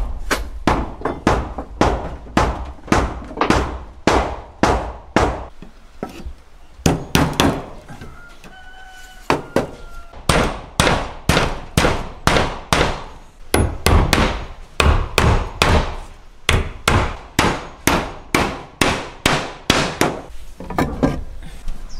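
Hammer blows struck at a steady pace of about two a second, pausing briefly near the middle of the stretch and then resuming.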